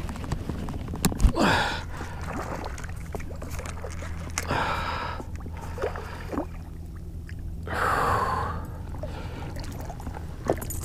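A sharp click about a second in, then three short breathy rushes of sound: an angler's hard breaths or gasps while a hooked bass is played on a baitcasting rod and reel. A steady low hum sits under it all.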